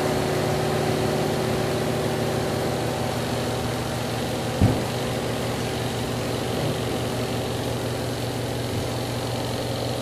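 Spin-dryer motor of a Midea TW100AD twin-tub washing machine spinning a load of washed clothes, a steady hum. A single knock about halfway through.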